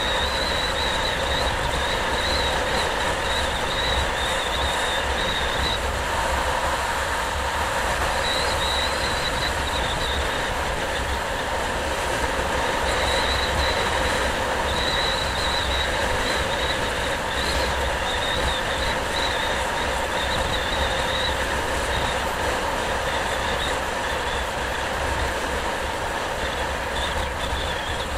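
Steady road noise from a vehicle driving along a road, with wind buffeting the microphone in a low rumble and a high wavering whine that comes and goes.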